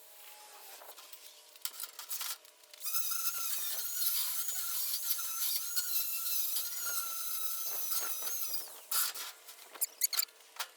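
A power tool runs for about six seconds with a wavering high whine over a hiss, between sharp clicks and knocks of handling.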